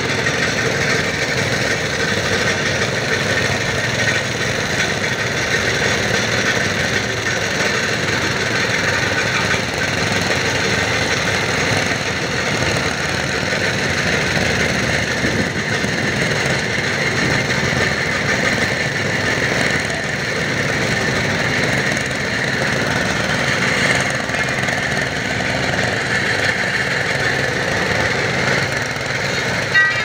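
Diesel engine machinery running steadily and loudly, from an engine-driven laterite block cutting machine and a Cat 424B backhoe loader close by.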